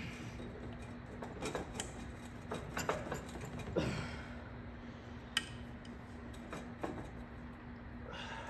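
Light metal clinks and scrapes as a motorcycle's final drive housing is worked against the swingarm and rear shock mount to line it up with the prop shaft splines: a few separate short knocks scattered over several seconds.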